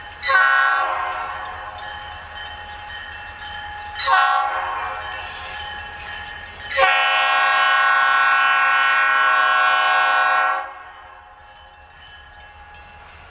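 Air horn of an EMD SD40-2 freight locomotive sounding for a grade crossing on its approach. There are three blasts: two that start sharply and fade, about four seconds apart, then a long steady blast of nearly four seconds that cuts off. A low rumble runs underneath.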